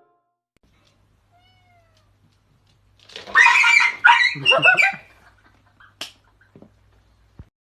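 A domestic cat meowing loudly twice in quick succession, each call about a second long and rough-edged, followed by a few faint ticks.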